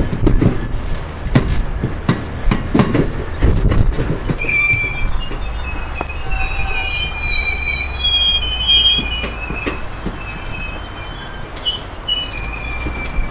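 Bogie hopper wagons rolling slowly over the rails, with irregular clunks and knocks for the first four seconds or so. The wheel flanges then squeal on the curve in several high, wavering tones over a steady low rumble.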